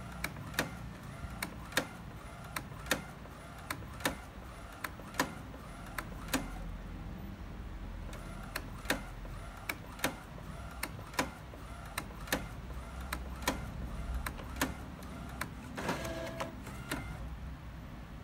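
Printer printing a photo poster: a steady low mechanical hum with sharp clicks about once or twice a second as the sheet is fed through, and a brief louder whirring about 16 seconds in.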